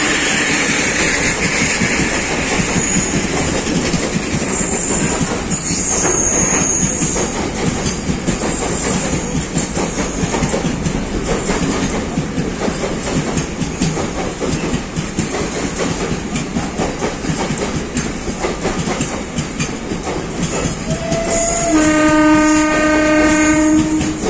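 Loaded container flat wagons of a goods train rolling past at speed, the wheels clattering steadily over rail joints. Near the end a train horn sounds for about two seconds.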